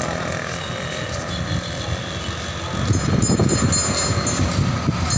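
Road traffic noise: a steady rumble of vehicles, growing louder about three seconds in as a vehicle passes close by.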